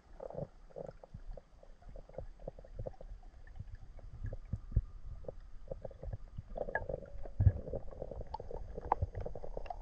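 Muffled underwater sound as heard through a camera housing: irregular gurgles with many short clicks and knocks, growing busier toward the end.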